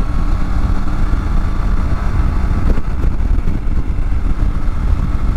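Triumph Tiger 900 GT Pro motorcycle cruising steadily at about 50 mph. Wind rushes and buffets on the microphone, and the three-cylinder engine and road noise run underneath.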